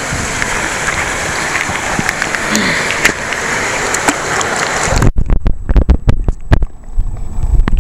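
Steady rushing noise of moving water and wind at the water's edge while a bass is lowered into the current for release. About five seconds in the camera's microphone goes under the water: the sound suddenly turns muffled, with heavy low thuds and knocks of water and handling against the camera.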